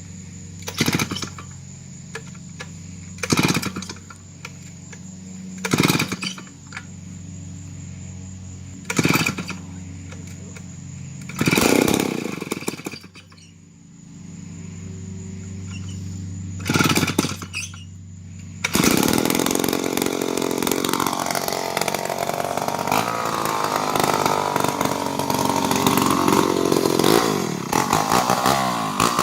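Vintage Wards two-stroke chainsaw being cold-started: six short, loud pulls on the starter rope, then about two-thirds of the way in the engine catches and runs, revving up and down.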